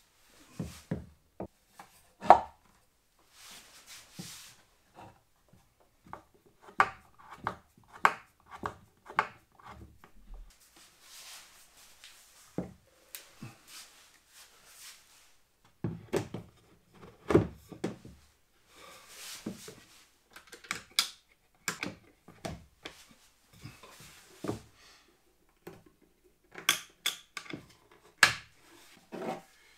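Irregular knocks and clatter of wood and tools as a drill-press motor with its sanding disc is set into a wooden mount on a homemade disc sander, with a few stretches of scraping in between.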